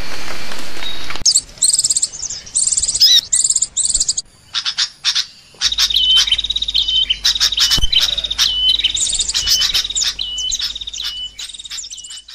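A loud steady rushing noise that cuts off suddenly about a second in, then a songbird singing a long, fast, varied run of high chirps and trills with short repeated notes.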